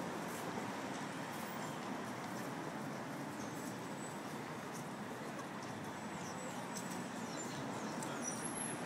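Steady city street noise, a constant hum of traffic. Faint high-pitched chirps sound over it from about halfway in.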